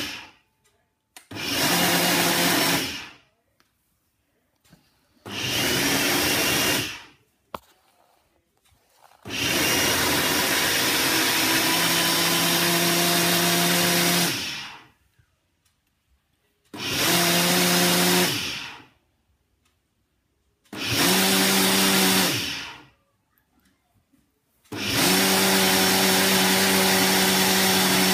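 Electric kitchen blender run in six separate pulses of two to five seconds, each one whirring up to a steady loud hum and winding down, with near silence between.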